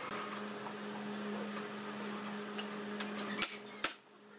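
A steady low hum, then near the end two sharp knocks, the second louder: a wooden mallet striking a clamped pine frame.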